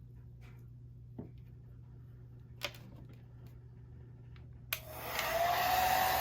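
A few faint clicks of handling, then a hair dryer switched on near the end: a click, then a steady rush of air with a motor whine that rises as it spins up and settles into one steady tone.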